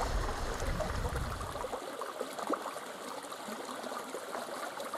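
Shallow river water running and trickling over rocks, with many small splashy ticks. A low rumble underneath stops about two seconds in.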